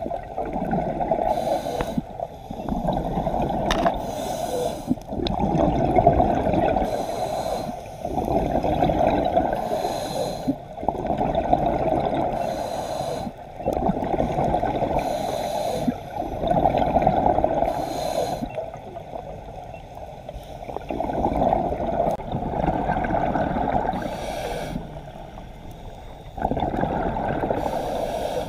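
Scuba diver breathing through a regulator underwater. Each breath is a short hiss of inhaling, then a longer burble of exhaled bubbles, repeating about every three to four seconds.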